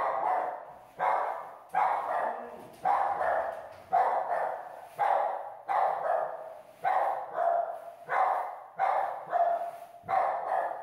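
A dog barking over and over, about two barks a second in a steady rhythm, each bark ringing on briefly in a hard-walled kennel room.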